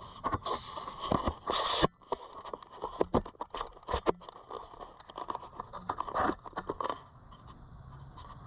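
Handling noise on a handheld camera's microphone: irregular crackling clicks and rustles, with a longer loud rustle about a second and a half in, tailing off near the end.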